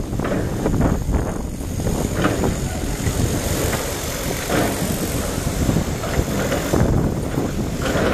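Sumitomo SH480 hydraulic excavator working: a steady diesel engine rumble with repeated short knocks and clanks.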